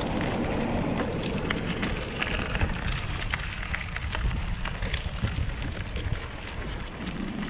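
Bicycle tyres rolling over gravel: a steady crunching crackle with many small scattered clicks, over a low wind rumble on the microphone.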